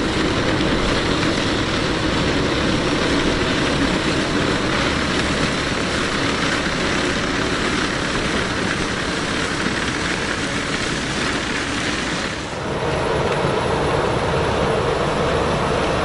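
Vervaet Beet Eater 926 self-propelled sugar beet harvester at work, its engine and lifting and cleaning machinery making a steady, dense mechanical din, with a tractor's engine running alongside. The sound dips briefly and changes character about three-quarters of the way through.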